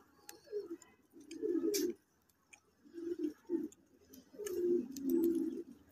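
Domestic pigeons cooing in low, rolling phrases, about four bouts of a second or less each, with a few sharp clicks between them.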